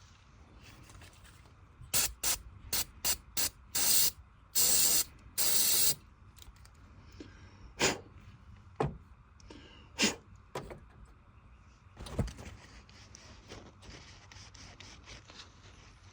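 Aerosol carburetor cleaner sprayed in several short hissing bursts and then two longer ones onto a gas-fouled spark plug to clean it. Light clicks and knocks of handling follow.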